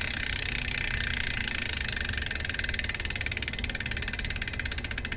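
Koozer XM490 rear hub's freehub pawls ratcheting as the spun rear wheel coasts. The rapid clicking blurs into a buzz at first, then slows into separate clicks that grow further apart as the wheel loses speed.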